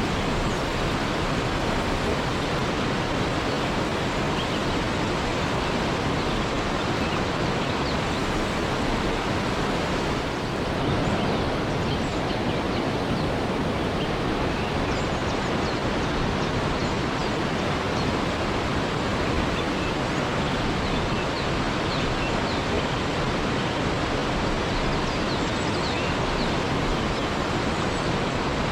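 A waterfall rushing steadily, an even, unbroken wash of falling water. Faint short high chirps rise above it here and there.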